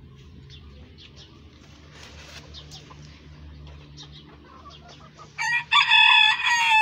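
A rooster crows once near the end, a loud long call; before it there are only faint scattered ticks over a low hum.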